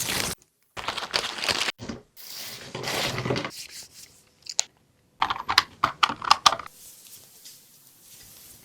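Paper food wrappers crinkling and tearing in several short rustling bursts, then a quick run of crisp clicks and crackles about five to six and a half seconds in.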